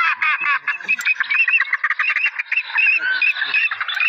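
Dense, continuous chorus of many overlapping animal calls at a marsh: rapid, repeated short chirping notes, several a second, with no pause.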